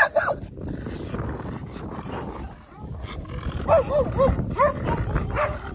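A dog barking: a couple of short barks right at the start, then a run of about five barks from a little before four seconds in.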